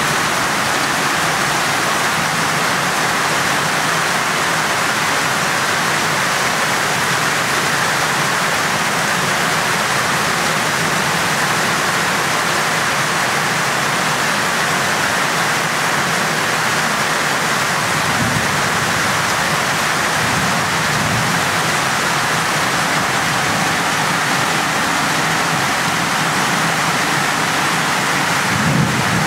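Heavy rain pouring down with floodwater rushing, a steady, even hiss that does not let up. There is a brief low thump near the end.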